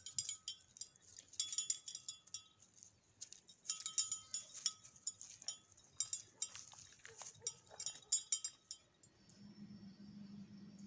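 Small metal chimes tinkling in irregular clusters of light strikes, ringing at the same few high pitches each time. About nine seconds in, the tinkling gives way to a steady low hum.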